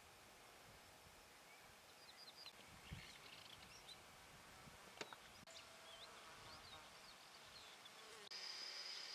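Faint rural ambience: scattered high chirps of small birds from about two seconds in, then near the end a steady high-pitched insect buzz sets in.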